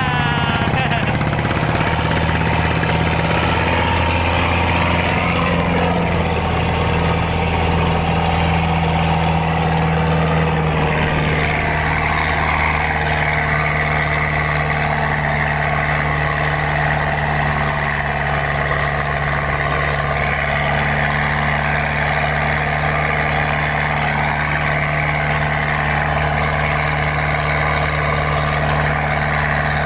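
Mitsubishi 4D31 four-cylinder diesel engine running steadily at a constant speed in a boat.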